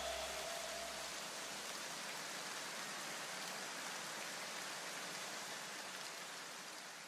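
An even hiss, slowly fading out, left as the electronic music track ends, with a low bass note dying away in the first two seconds.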